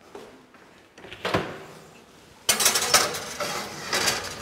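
A click, then a metal baking tray clattering and scraping along the oven's wire rack as it is slid in for about a second and a half.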